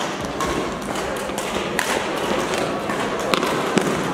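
Badminton play echoing in a sports hall: several sharp clicks of rackets striking the shuttlecock and shoes on the court, over a steady background din of the hall.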